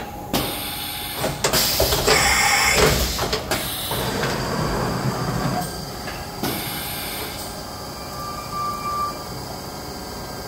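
Equiptop Hitech EMV-600 CNC vertical machining center running, with a loud rushing noise over the first three and a half seconds that then settles into a steadier mechanical running sound with a faint steady whine.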